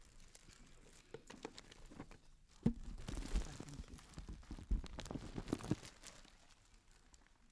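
Crinkling and rustling of paper or plastic wrapping being handled, with scattered small knocks and two low thumps, busiest through the middle of the stretch.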